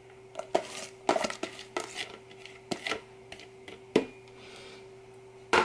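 Chopped carrots, onion and green pepper tumbling out of a plastic bowl into a stainless-steel pressure-cooker pot: irregular light clatters and taps of vegetable pieces and the bowl against the metal. The loudest knock comes at the very end.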